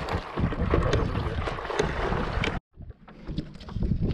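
Strong wind buffeting the microphone, with water splashing against a stand-up paddle board. The sound cuts off suddenly about two and a half seconds in, then comes back fainter.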